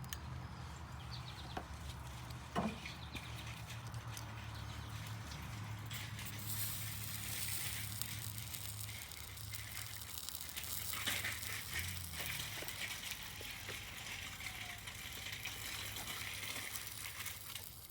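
Soldering iron with flux on a twisted wire splice: a faint sizzling hiss of the flux from about six seconds in, over a low steady hum that stops about twelve seconds in, with one sharp click early on.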